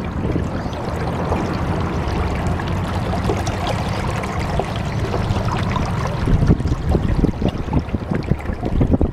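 Steady splashing and trickling water over a low rumble.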